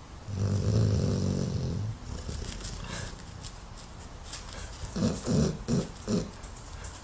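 A dog snoring: one long, low snore about a second and a half long near the start, then four short snores in quick succession about two thirds of the way through.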